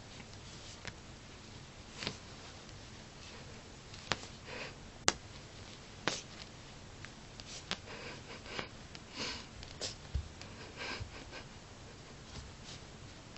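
A Bengal cat sniffing and snuffling at catnip on a carpet, in short irregular bursts that come thicker past the middle. A few sharp clicks come in between, the loudest about five seconds in.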